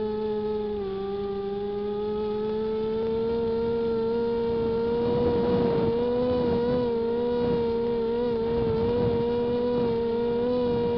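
Twin electric motors and propellers of a WLZX W500 model plane, heard close from its onboard camera, whining steadily. The pitch dips slightly about a second in and then creeps up, with a rush of air noise around five to six seconds in.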